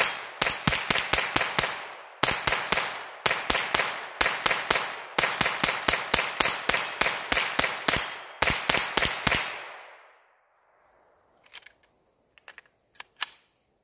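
Hammerli TAC R1 semi-automatic .22 rimfire rifle fired rapidly, several shots a second in quick strings with brief pauses, dumping the magazine; the firing stops about ten seconds in, followed by a few light mechanical clicks.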